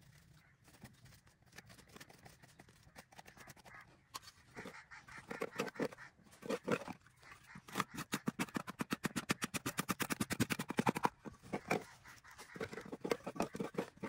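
Hand scraping and scooping loose soil out of a small dug hole, a run of short scratchy strokes that quickens into a rapid, even series about halfway through, then slows near the end.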